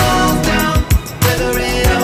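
Background pop music with a steady drum beat and held notes.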